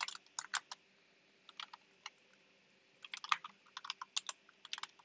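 Typing on a computer keyboard: a quick run of keystrokes at the start, a near-quiet pause with a couple of single key presses, then steady typing again from about three seconds in.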